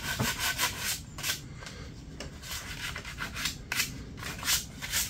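Sandpaper rubbed by hand over a freshly painted light surround in short, irregular scratchy strokes, scuffing up the new paint to give it a worn finish like the rest of the paintwork.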